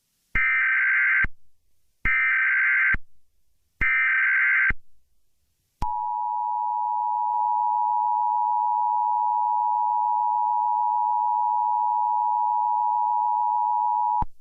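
Emergency Alert System SAME header: three short bursts of warbling data tones. They are followed by the EAS two-tone attention signal, held steady for about eight seconds. Together they mark the start of an emergency alert.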